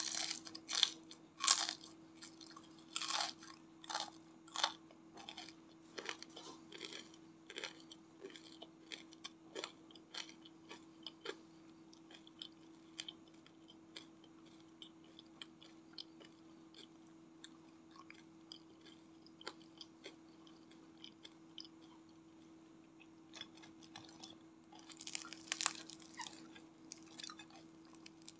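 Crisp bites and crunchy chewing of deep-fried battered fritters (gorengan): several loud crunches in the first few seconds, thinning into quieter, sparser chewing. Near the end, a short burst of crackling as a crispy fritter is handled in the hands. A faint steady hum runs underneath.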